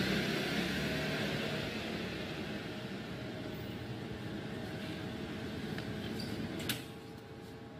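City street ambience: a steady traffic hum that slowly fades, with a faint steady mechanical hum and a single sharp click about seven seconds in.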